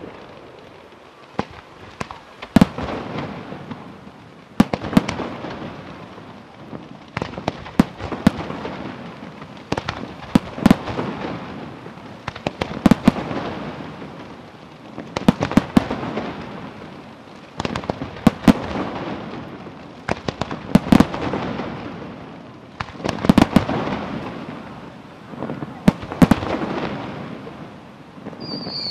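Fireworks display: aerial shells bursting in sharp bangs about every two and a half seconds, with a swell of crackling and rumbling between each burst.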